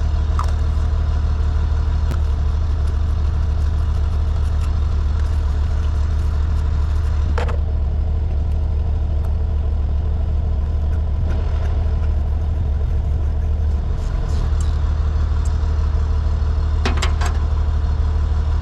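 A steady low mechanical drone like an engine idling, with a few short clicks of metal work over it, once about seven seconds in and again near the end.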